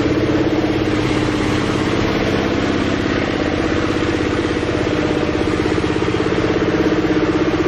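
Small stationary engine running steadily with a rapid even beat, driving a machine that feeds strands of fish feed down a chute into the water.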